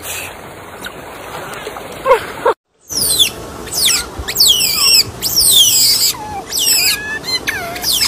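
Asian small-clawed otters squealing: loud, high-pitched calls, each sliding quickly down in pitch, coming two or three a second after about the first three seconds. Before that, softer water swirling.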